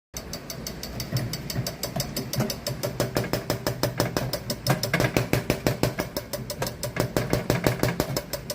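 Komatsu PC200 excavator's six-cylinder diesel turning over on the starter, a fast, even pulsing of about seven compression strokes a second over the starter's hum. It starts abruptly.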